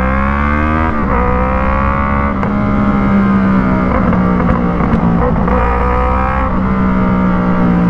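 Yamaha MT-03 parallel-twin engine through an Arashi aftermarket exhaust with a dB killer fitted, revving up under acceleration and dropping in pitch at an upshift about a second in, then pulling at a fairly steady pitch.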